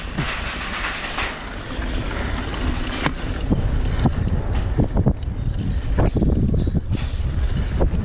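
Bicycle tyres rolling over the metal grating deck of a steel suspension bridge: a steady low rumble with short clanks as the wheels cross the deck's cross-members.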